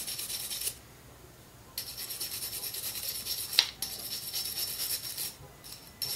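A small hand brush scrubbing the stainless steel disc of a 1½-inch butterfly valve in rapid back-and-forth strokes, cleaning residue off the metal. The scrubbing stops for about a second near the start, then resumes, with one sharp click a little past halfway. It ends in a few short separate strokes.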